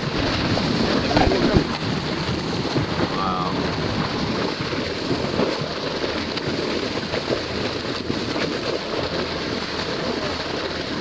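Steady rushing of sea water and wind on the microphone, with a faint steady hum from about three seconds in.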